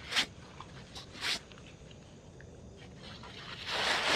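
Rustling of camping gear being handled: two short rustles, then a longer rustle near the end.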